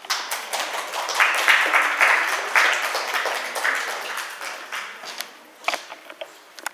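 Audience applauding, a dense patter of clapping that dies away after about five seconds. Near the end come a few separate footsteps on a wooden floor.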